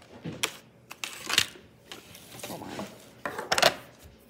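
Handling noises as small objects are moved about: a few sharp clicks and knocks with light rubbing between them, the loudest cluster a little before the end.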